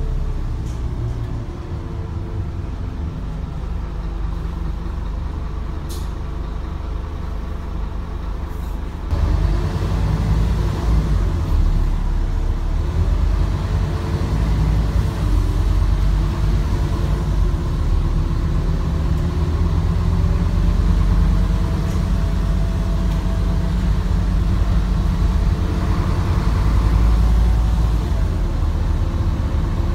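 Scania N230UD double-decker bus's diesel engine heard from on board: it runs steadily at a low level for about nine seconds, then gets suddenly louder as the bus pulls away, the engine note rising and falling as it accelerates.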